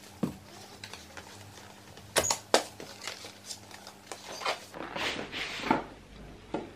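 Cardboard product box being handled and opened, with a few sharp taps and clicks from the flaps. About five seconds in, the gimbal's foam carry case scrapes and rustles as it slides out of the box.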